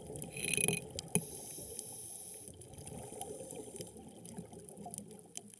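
Underwater ambience on a reef dive: a steady wash of water noise dotted with many faint crackling clicks, with a brief brighter hiss in the first second.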